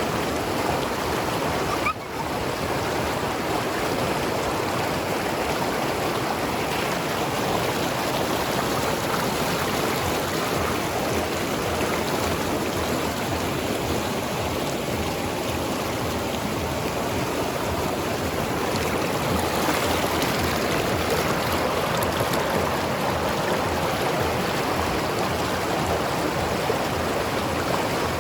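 Mountain river flowing and tumbling over rocks: a steady rush of water with gurgling, briefly dipping about two seconds in.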